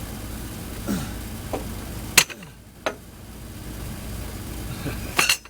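A few sharp clanks and knocks of tools and metal being worked on a vehicle body, the loudest about two seconds in and a quick double knock near the end, over a steady low hum.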